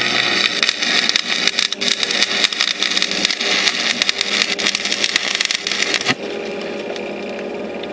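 Stick welder arc crackling and spitting steadily as a bead is run on steel. The arc breaks off sharply about six seconds in, leaving a steady hum.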